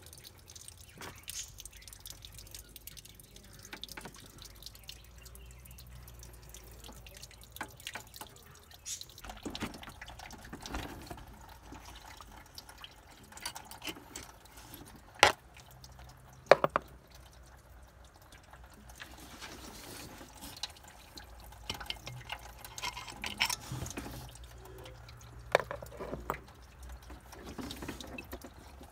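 Engine oil dripping in irregular drips, with two sharp louder clicks a little past halfway, a second or so apart.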